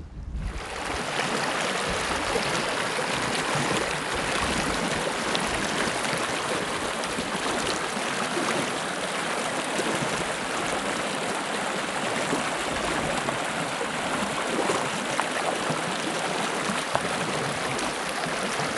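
Shallow mountain stream running over rocks and gravel: a steady rush of water that starts abruptly just after the beginning.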